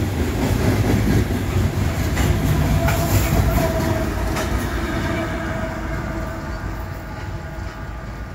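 Loaded CSX coal train passing close: hopper cars rumbling and clattering over the rail joints, then a diesel locomotive in the consist goes by about four seconds in. The sound fades off over the last few seconds.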